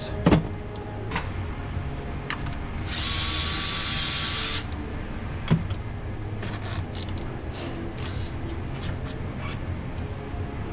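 A handheld power tool runs in one burst of under two seconds, about three seconds in, amid scattered clicks and knocks of tools on metal, over a steady low hum.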